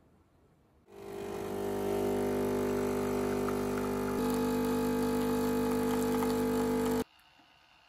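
Background music: a sustained chord that fades in, changes about three seconds later, then cuts off abruptly.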